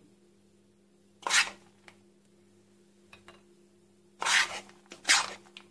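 Crushed walnuts rustling and scraping out of a bowl as they are sprinkled over the dessert: three short scrapes with a few light clicks between them, over a faint steady hum.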